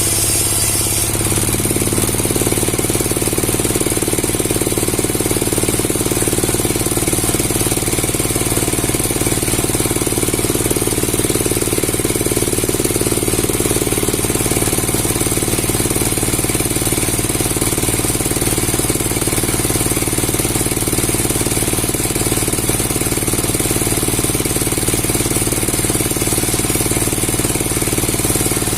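A powered wood-cutting machine running steadily with a fast, dense rattle over a low hum; the sound shifts slightly about a second in.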